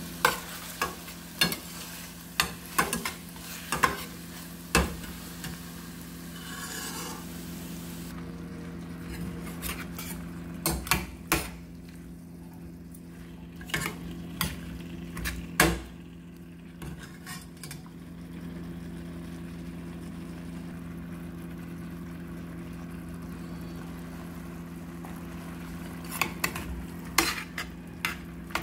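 Spoon stirring vegetables in a stainless steel pot on the stove, with repeated sharp knocks and scrapes of the spoon against the pot. Light sizzling runs through the first several seconds, over a steady low hum.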